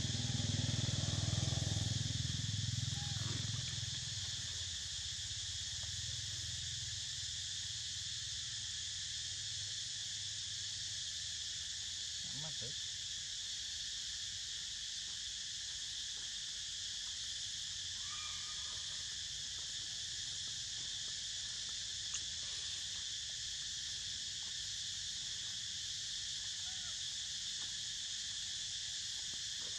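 Steady, unbroken buzzing of an insect chorus, cicadas or crickets, droning at several high pitches at once. An unidentified louder low-pitched sound fills the first three seconds.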